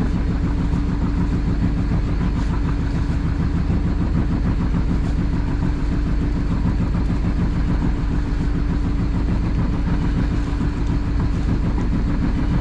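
Fishing boat's engine running steadily under way, with a fast, even throb and a constant hum.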